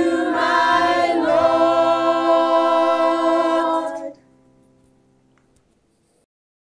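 Junior choir of mixed children's and adult voices singing the song's final chord, held as one long note that stops about four seconds in and fades out within another second.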